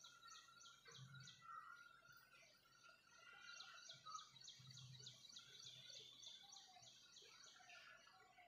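Faint birdsong: quick runs of high repeated notes, one at the start and a longer one in the middle, with quieter chirps between.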